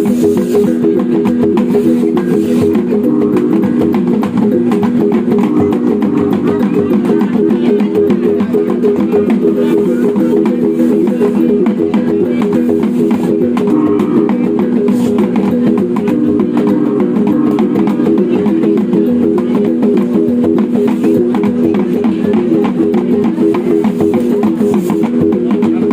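Sumbanese gong ensemble playing Woleka dance music: many overlapping ringing gong tones struck in a fast, steady, unbroken rhythm.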